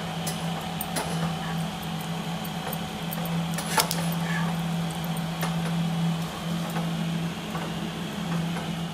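Crabs being scrubbed with a toothbrush and handled over a steel bowl of water: scattered clicks and knocks of shell against the bowl, the sharpest about a second in and near four seconds in, over a steady low hum.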